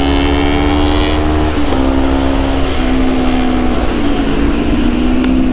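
Sport motorcycle's engine running at steady cruising revs, heard from the rider's seat with wind rushing over the microphone; the engine note sags slightly a few times.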